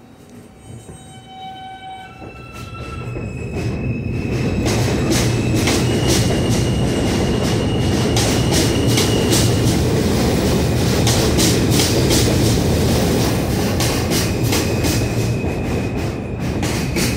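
R160 subway train pulling out of the station. A series of stepped whining tones sounds as it starts, then the passing cars build over about four seconds into loud, steady wheel-and-rail noise. Rapid sharp clacks come over the rail joints, with a high wheel squeal on top.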